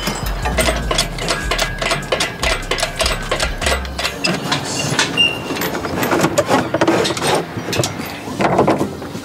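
A quick run of mechanical clicks, knocks and metal clinks, over a low steady hum that cuts off about four seconds in.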